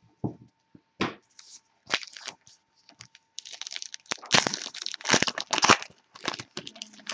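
Trading-card pack wrapper being torn open and crinkled: a few sharp rips, then a denser stretch of crackling and tearing in the second half.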